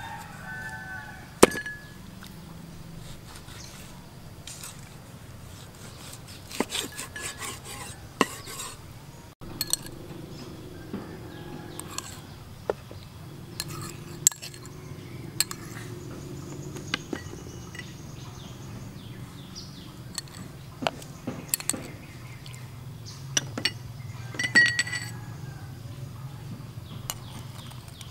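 A metal spoon clinking and tapping against small ceramic dishes while sauce and sugar are spooned onto pieces of cow heart, in many short, irregular clinks over a low, steady hum. There is one loud knock about a second and a half in.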